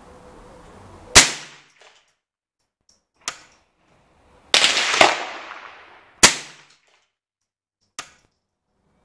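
Single .22 LR rimfire shots, CCI standard-velocity ammunition, fired from an AR-15 fitted with an NEA .22 conversion unit: several sharp cracks a second or two apart, each with a short ringing tail, two of them much louder than the rest.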